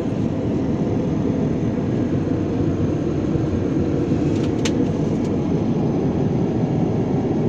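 Steady low cabin noise of an airliner in flight, heard from inside its lavatory, with a brief click about four and a half seconds in.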